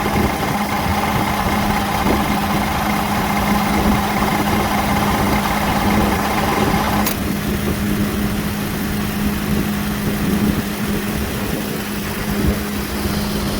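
Car engine idling with its faulty AC compressor engaged, giving a rattling noise with a steady whine. About halfway through there is a click as the compressor clutch disengages, and the rattle cuts off, leaving the engine idling. The rattle while engaged is the sign of a bad AC compressor that needs replacing.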